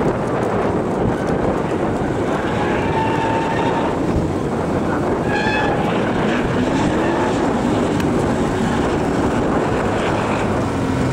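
Chevrolet Firenza Can Am rally car's 302 small-block Chevrolet V8 running hard as it drives through the stage, its pitch rising about halfway through, under a steady rush of noise.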